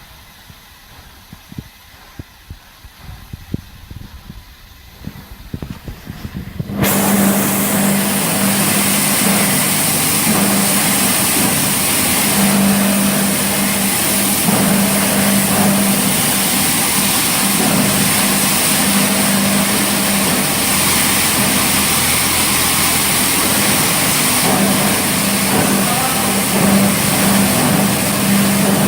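Fruit-pressing line machinery running, a loud steady hiss over a constant hum, which cuts in abruptly about seven seconds in after a quieter stretch of low rumble.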